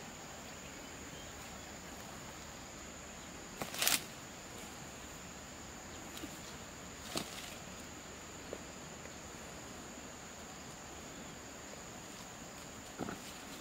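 A few brief crackles and snaps of twigs and dry leaf litter in forest undergrowth as mushrooms are picked by hand. The loudest comes about four seconds in, with smaller ones near seven and thirteen seconds. Under them runs a steady high-pitched insect drone.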